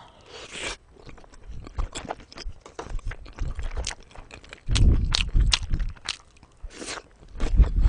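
Close-miked eating: a person chewing a mouthful of food, with many small wet smacking and crunching clicks, louder and heavier about five seconds in and again near the end.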